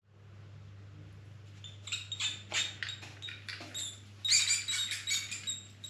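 A mouse squeaking: a rapid run of short, high-pitched squeaks in quick clusters, starting about two seconds in and loudest near the end.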